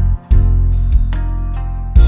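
Instrumental music through PA speakers: a saxophone melody over a backing track with a steady drum beat, strong bass and keyboard or guitar chords.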